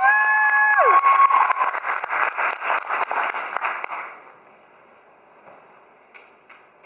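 Audience applauding, with a couple of high, held whooping cheers near the start; the applause dies away about four seconds in, leaving a few faint clicks.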